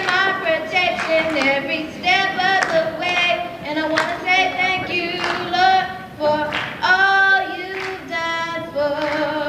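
High school gospel choir singing, with long held notes bending between pitches.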